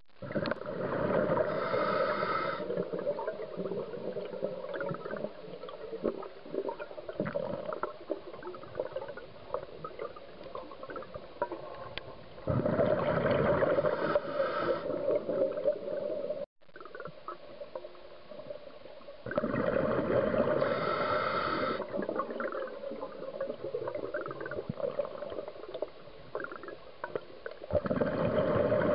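Scuba diver's breathing heard underwater through a camera housing: four exhalations through the regulator, each a few seconds of bubbling rush with a buzzing tone, and faint crackling of bubbles in between.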